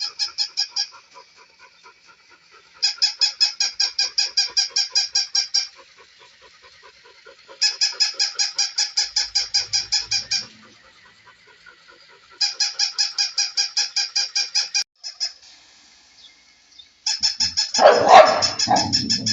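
Battery-operated toy dog's electronic yapping: bursts of about three seconds of quick, evenly spaced high-pitched yaps, about five a second, repeating with pauses of about two seconds. Near the end a louder, lower sound joins the last burst.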